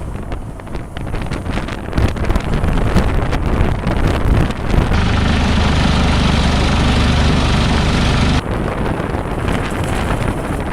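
A vehicle driving with heavy wind buffeting the microphone. From about five seconds in, a steady low hum joins it and then cuts off sharply near the end.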